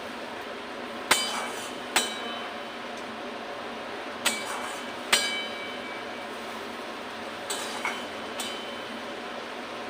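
Metal utensil striking a metal cooking pan while stirring, with four sharp ringing clinks in the first half and three softer ones near the end, over the steady sizzle of masala frying in oil.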